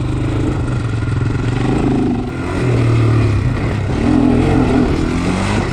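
Honda 400X sport quad's single-cylinder four-stroke engine running while riding a trail, its note rising and falling slightly with the throttle.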